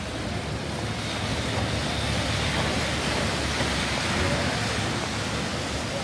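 Traffic noise on a rain-wet street: a steady hiss over a low rumble, swelling in the middle as a bus drives along the wet road.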